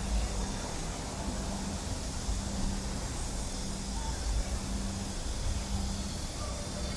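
Outdoor city ambience: a steady wash of background noise with a low rumble that rises and falls and a low hum that comes and goes.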